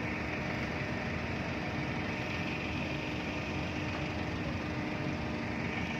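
Large crane's engine running steadily while lifting a pilot boat: an even, continuous hum with a constant drone.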